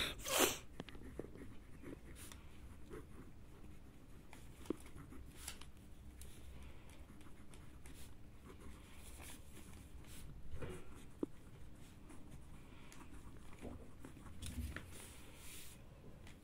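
Ballpoint pen writing on a ruled notebook page: faint scratching of the pen strokes. A brief louder noise comes about half a second in.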